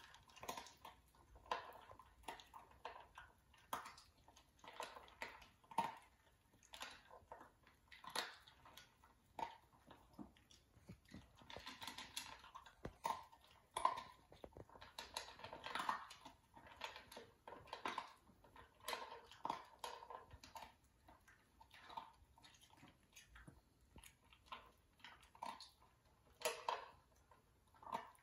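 Shiba Inu crunching dry kibble from a stainless steel bowl: irregular crunches and sharp clicks as it chews, a few a second, in small clusters.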